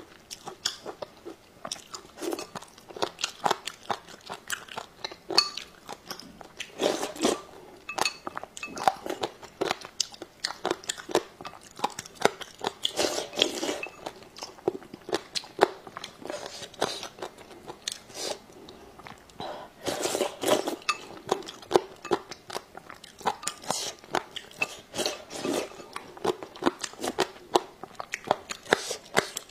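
Close-up eating sounds: chewing and crunching of chewy-crisp dried shredded papaya taken with rice porridge, with a few louder, longer rushes from sips at the bowl's rim.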